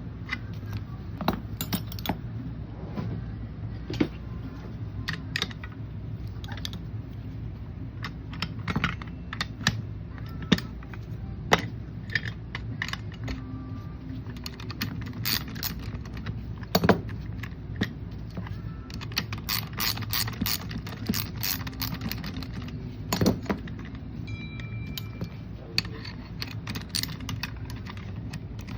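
Small metal parts and hand tools clinking and rattling as a 2400 series winch is taken apart: scattered sharp clicks and knocks, a few louder ones, over a steady low shop hum.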